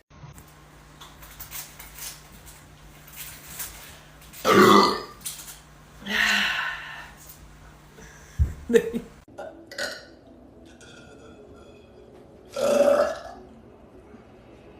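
Women burping loudly, one after another: three long burps about four and a half, six and thirteen seconds in, the first the loudest.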